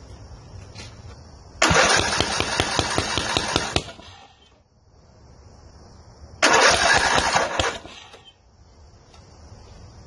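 Ariens zero-turn mower's engine cranked over twice, each try lasting about two seconds, and not catching. It coughs blow back out through the air cleaner, the sign of the faulty pushrod that is keeping it from running.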